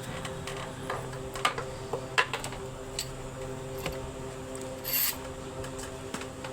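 Workshop handling sounds of metal parts and tools: several sharp clicks and knocks, then a short hiss about five seconds in, over a steady mechanical hum.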